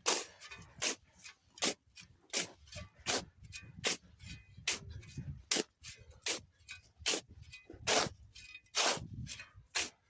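A hand tool scraping gritty building material in steady strokes, a little more than one a second, as in working sand and cement mortar.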